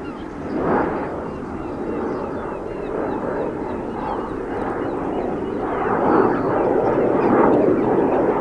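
Jet aircraft rumble, rough and fluctuating, growing steadily louder as the aircraft approaches.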